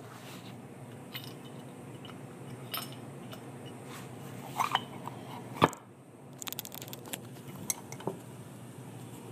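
Light clicks, taps and metal clinks of small HX35 turbocharger parts being handled as the thrust washer is fitted by hand, mixed with rubbing on the phone. The sharpest click comes about five and a half seconds in.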